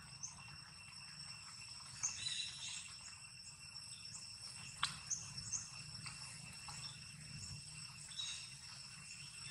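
Outdoor forest ambience: insects droning steadily at a high pitch, with scattered short chirps and one sharp click about five seconds in.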